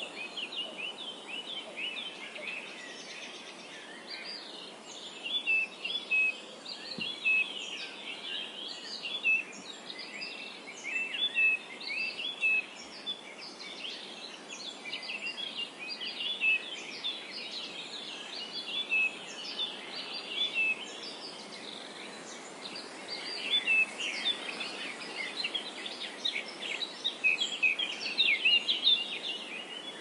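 Meadow ambience: several small birds chirping and singing in quick, overlapping short notes over a steady hiss of wind, the chirping growing busier at times.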